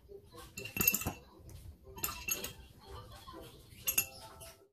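A metal spoon clinking against small ceramic ramekins while scooping sauce, in three short groups of clinks.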